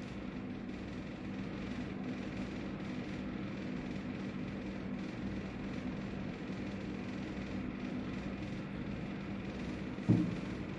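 Room air conditioner running with a steady low hum and hiss. A brief low sound cuts in near the end.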